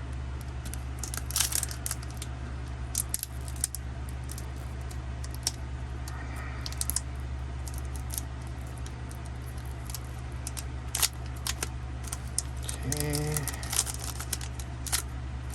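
Pokémon booster-pack packaging and cards being handled: scattered sharp crinkles and crackles over a steady low hum.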